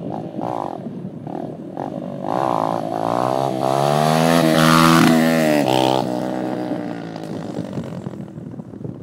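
Dirt bike engine revving in short blips, then climbing in pitch and loudness as it comes past close by, loudest about five seconds in, with the pitch dropping as it rides away and fades.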